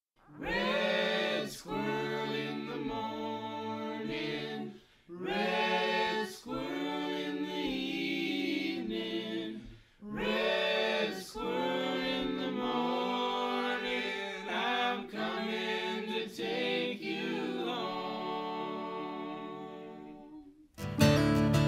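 Several voices singing a cappella in harmony as background music, in phrases with brief pauses about every five seconds, fading away near the end. An acoustic guitar strum comes in just before the end.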